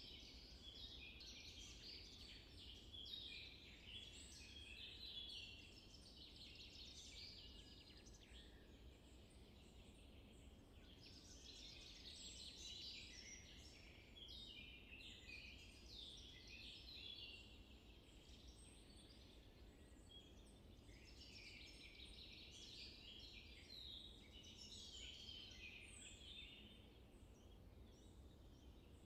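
Faint chorus of many small birds chirping and twittering, swelling and fading in waves, over a low steady background rumble.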